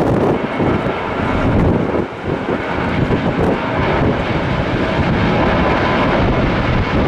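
Jet airliner departing, its engines at takeoff power making a loud, steady rumble.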